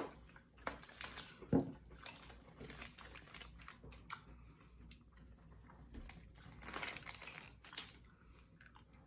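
Candy wrappers crinkling and small clicks from hard candy being unwrapped and handled, with a longer crinkle about seven seconds in.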